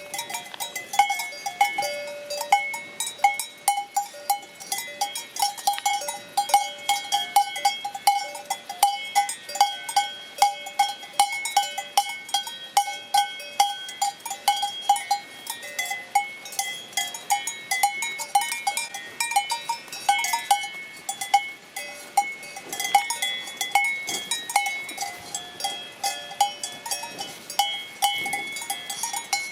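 Several cowbells clanking continuously and irregularly as the cows move, each strike ringing at one of a few different pitches.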